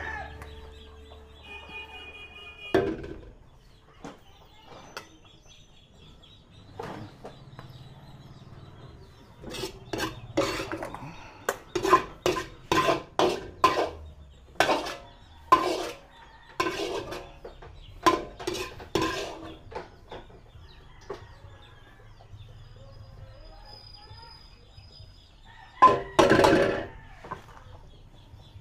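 A metal utensil clinking and scraping against a cooking pan in a run of short strokes as cooked miki-bihon noodles are scooped out onto a tray. A chicken clucks faintly, with one louder call near the end.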